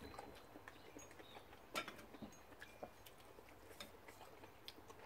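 Quiet eating at the table: a few faint clicks of chopsticks against soup bowls, the sharpest a little under two seconds in, with soft chewing.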